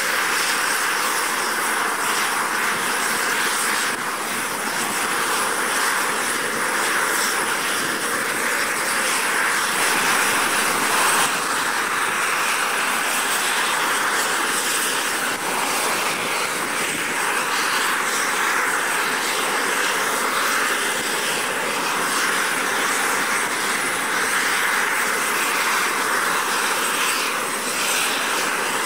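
Lockheed L-188 Electra's four Allison 501 turboprop engines running steadily, an even rushing drone with a thin high whine held over it.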